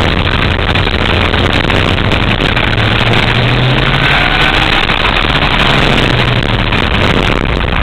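Go-kart engine at full throttle as the kart accelerates out of a corner and down a straight, its note stepping up in pitch about three seconds in, under a loud, steady rush of wind noise on the onboard microphone.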